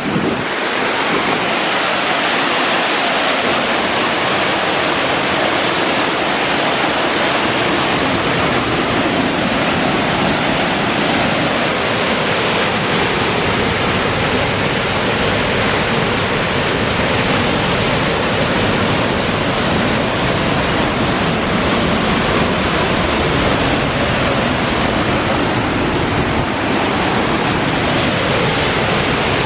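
Steady loud rushing of water, as from a waterfall or fast cascade close by.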